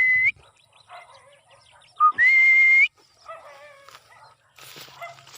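A person's two-note recall whistle to a free-flying cockatiel: a short low note, then a longer higher note held steady and rising at its end. One whistle ends just after the start and a second full one comes about two seconds in.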